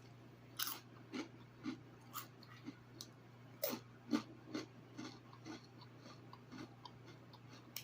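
A person chewing crunchy food close to the microphone, with a string of crisp crunches about two a second.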